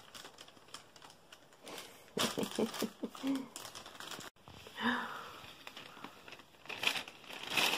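A thin plastic shopping bag crinkling and rustling in several short bursts as a baby pulls and rummages at it.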